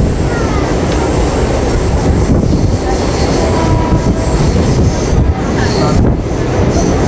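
Mumbai suburban local train running, heard from on board: a loud, steady rumble and rattle of the carriage on the track, with a high whine that fades about two seconds in.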